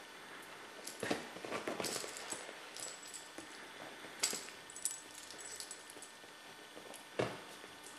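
Scattered rustling and light metallic clinks as a Sphynx cat in a metal-studded collar scrambles after a string toy, with one thump near the end.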